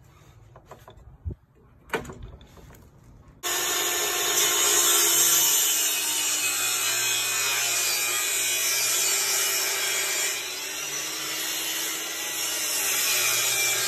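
Kobalt jobsite table saw with its blade tilted to 45 degrees, running and ripping a wooden board to a bevel. A couple of clicks come first, then the saw comes in abruptly about three and a half seconds in and runs steadily through the cut.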